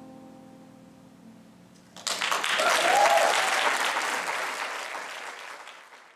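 The last chord of a stage keyboard fading out, then an audience bursting into applause about two seconds in, with one voice briefly cheering; the applause dies away near the end.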